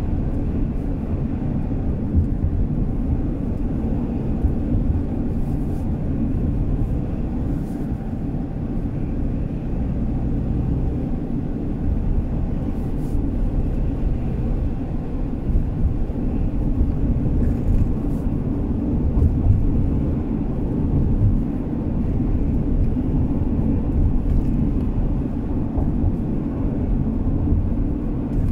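Car driving along: a steady low rumble of road and engine noise with no sharp events.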